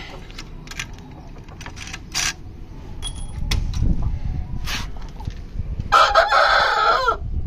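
An Aseel rooster crows once near the end, a loud call about a second long that drops in pitch as it ends. A few short clucks come before it.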